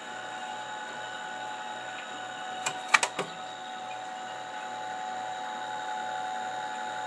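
The TRS-80 Model II's 8-inch Shugart 801 floppy drive motor and cooling fan running steadily, a hum with several steady tones. A few sharp clicks about three seconds in. The drive spins but is not trying to read the disk.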